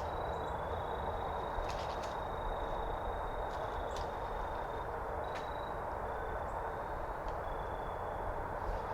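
Steady outdoor background noise with a faint high thin tone coming and going, and a few light crunches or clicks, like leaves being stepped on, about two, four and five seconds in.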